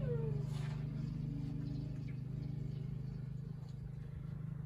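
A steady low mechanical hum with a buzzing edge, with a brief falling whine near the start.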